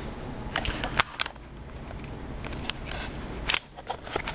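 Handling noise: a few scattered sharp clicks and light taps over a low steady hum, with a quick cluster about a second in and single clicks near the end.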